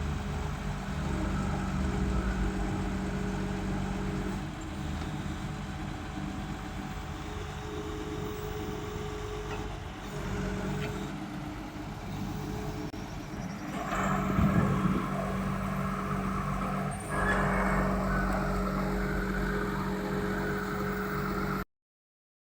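A heavy machine's engine running steadily, with a louder surge about fourteen seconds in and another shortly after; the sound cuts off abruptly just before the end.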